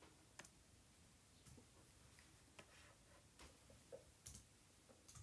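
Near silence: room tone with about half a dozen faint, irregularly spaced clicks.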